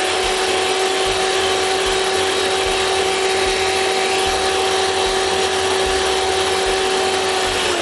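Electric hand mixer running at a steady speed, its twin beaters whisking whipping cream in a steel bowl to stiffen it. The motor gives a constant whine, then winds down near the end as it is switched off.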